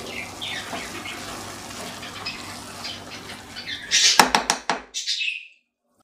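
Rice and vegetables sizzling in a nonstick wok while a spatula stirs and scrapes through them. About four seconds in come a few quick, sharp scrapes or knocks of the spatula against the pan, then the sound cuts off suddenly.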